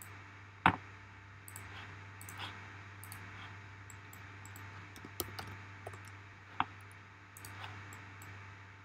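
Scattered clicks of a computer mouse and keyboard: a sharp click about a second in and a handful more between five and seven seconds in, over a faint steady low hum.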